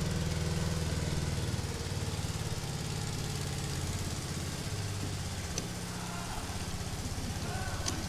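Undersized engine powering the hydraulic system of an Atlas missile silo's doors, running steadily with a low, even drone.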